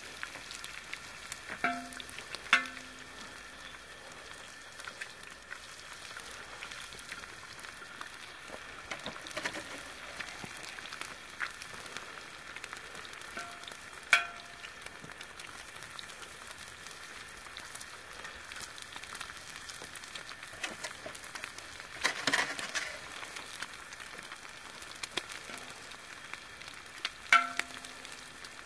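Sausage, potatoes and eggs frying in oil on a steel disco (plow-disc cooker) over a propane burner, a steady sizzle. About five times a sharp knock rings the metal disc briefly, as eggs are cracked on its rim.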